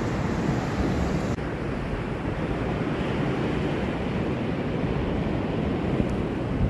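Steady roar of surf breaking on a beach, with wind buffeting the microphone.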